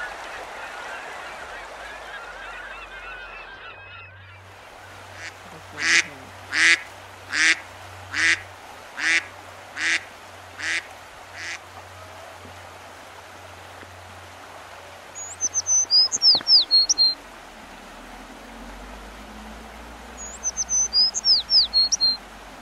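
A waterfowl gives a run of about eight loud honking quacks, each a little fainter than the last, over a steady rushing hiss of river water. Later a small songbird sings the same short, quick, downward-sweeping whistled phrase twice.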